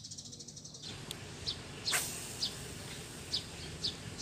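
Short high chirps of a small animal repeating every half second or so, with one sharp click about two seconds in, over a low steady background rumble.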